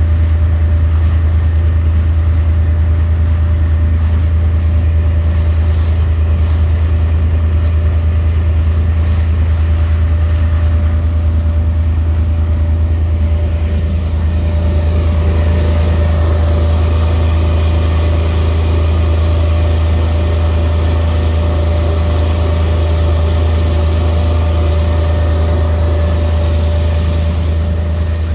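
Boat engine running steadily under way, a constant low hum with a steady higher tone over it. A rougher hiss joins about halfway through.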